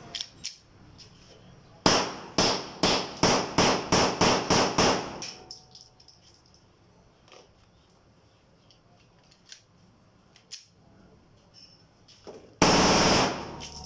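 9mm Glock 19 Gen 3–pattern pistol, locally made, firing a string of about ten single shots at roughly three a second. Near the end it fires a fast automatic burst lasting about a second.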